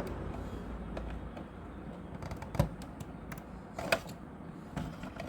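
Light clicks and handling noises of plastic printer parts and ribbon cables being fitted back into an opened inkjet printer, with two sharper clicks about two and a half and four seconds in, over a low steady hum.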